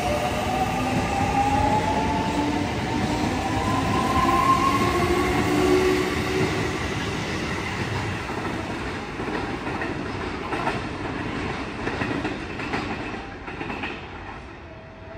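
Sanyo 5000 series electric train pulling away from a station. Its traction motors whine up in pitch over the first several seconds as it accelerates, and the wheels clatter over the rails. The sound fades near the end as the train moves off.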